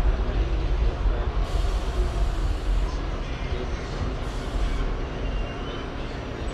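R68 subway car running through the tunnel, a heavy low rumble of wheels on rail with two short hisses. It eases off gradually as the train slows.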